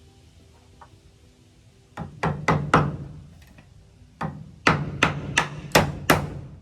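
Hammer striking nails into wood: a quick run of four blows, a short pause, then six more.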